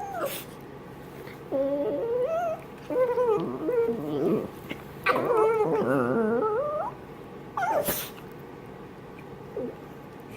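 A miniature pinscher and a toy fox terrier play-wrestling, making whiny, wavering growls in several bursts; the longest burst comes a little past halfway. There are a couple of sharp clicks, one near the start and one about 8 seconds in.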